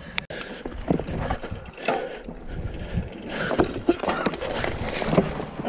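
2020 Specialized Fuse hardtail mountain bike rolling over a rough dirt trail: tyre noise on the ground, with frequent irregular knocks and rattles from the bike.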